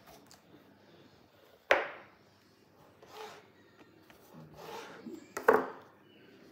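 Small knife cutting a block of cheese on a plastic cutting board: two sharp knocks of the blade against the board, about two seconds in and near the end, with quieter slicing strokes between.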